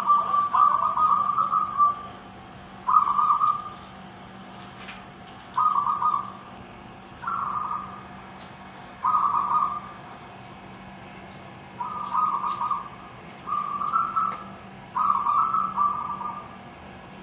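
Local zebra doves (perkutut) cooing and answering one another. Their short trilled coo phrases, each about a second long, come every one to three seconds and sometimes overlap.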